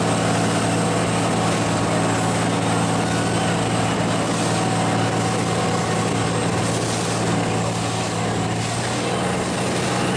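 A tow boat's engine running steadily under way, over the rushing noise of wake and wind; its pitch rises a little near the end.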